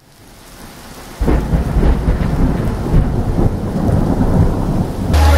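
Thunder rumbling over rain, fading in. The thunder turns suddenly loud about a second in and rolls on in uneven swells for several seconds, then cuts off just before the end to a steady low hum.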